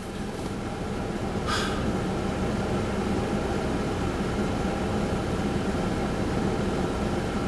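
A car driving, heard from inside the cabin: a steady engine hum under road and tyre noise, growing louder over the first couple of seconds, with a brief hiss about a second and a half in.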